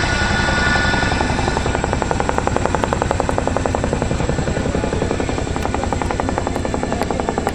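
Boeing CH-47 Chinook helicopter's tandem rotors beating in a rapid, even rhythm. A steady high-pitched whine fades out about a second and a half in.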